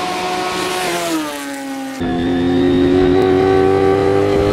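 A motorcycle engine passing by, its note dropping in pitch about a second in. Then a sudden change to a Yamaha FZR sport bike coming closer, its engine running louder and steady with the pitch creeping slowly up.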